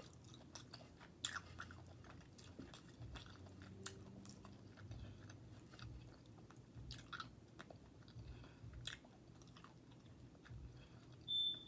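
Close-miked chewing of lobster tail meat, faint wet mouth sounds with scattered soft clicks and smacks. A brief high tone and a thump stand out near the end.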